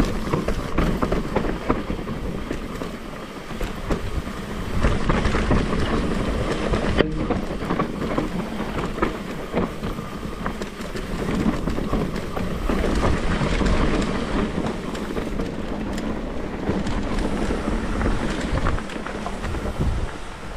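Mountain bike riding down a rough forest dirt trail: tyres rolling over dirt, leaves and stones, and the bike rattling over bumps with many small knocks and clatters over a low rumble.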